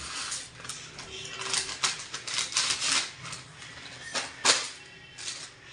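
Plastic noodle packet crinkling and crackling in irregular clicks as it is tipped over a pot of water, with a couple of louder clicks about four seconds in.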